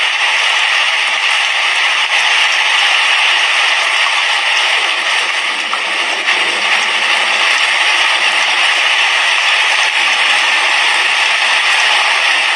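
Heavy rain falling on an asbestos-cement roof: a steady, dense patter and hiss.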